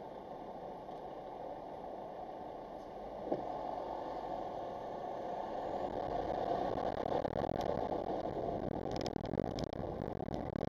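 A car's own engine and tyre noise heard inside the cabin through a dashcam microphone. It is low and steady at first. About three seconds in the car pulls away over cobblestones and the noise grows louder, with a few sharp rattles near the end.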